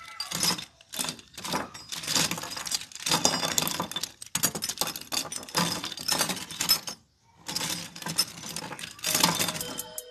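A pile of steel concealed wardrobe-door hinges clinking and clattering as hands stir and lift them, in repeated bursts with a brief pause about seven seconds in.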